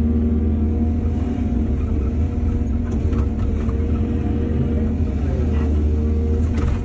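Excavator's diesel engine running steadily: a low drone with a steady whine above it, and a few faint clicks partway through.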